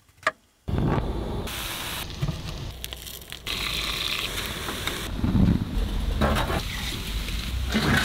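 Crumbled tofu and vegan sausages sizzling as they fry in a pan on a gas hob. The sizzle starts just under a second in after a brief hush and shifts in level every second or two.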